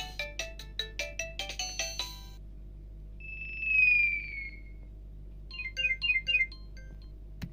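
Alcatel OneTouch 2005D ringtones and message tones played on a Nokia Asha 300's speaker. A fast electronic melody ends about two seconds in. Then comes a single descending swoop, the loudest sound, and near the end a short string of quick beeps.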